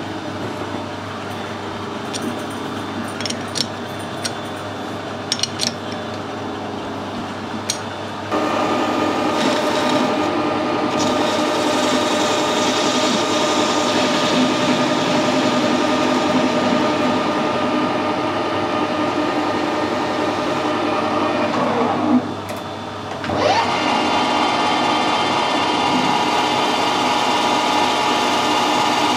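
Metal lathe running, turning aluminium bar stock, with a steady motor-and-gear whine. It jumps louder about eight seconds in, winds down to a brief stop about two-thirds of the way through, then spins back up and runs on.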